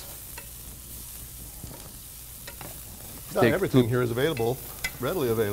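Diced bacon and onions sizzling faintly in a stainless steel skillet while a wooden spatula stirs them, with a few light scrapes against the pan. A voice starts talking about two-thirds of the way through.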